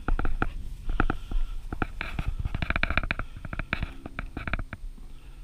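Footsteps through long grass, several a second and uneven, with the body-worn camera knocking and rubbing on each step, over a low rumble of wind on the microphone.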